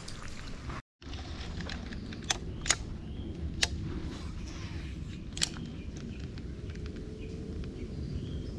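Steady low outdoor rumble of a body-worn camera on the move, broken by a brief dropout about a second in. Four sharp clicks are spread over the next few seconds.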